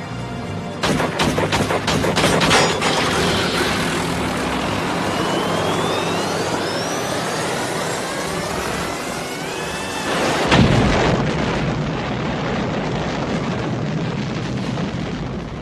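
A rapid string of about ten pistol shots fired at a helicopter, then a rising whine, and a heavy boom about ten seconds in as the helicopter goes down, over the film's score.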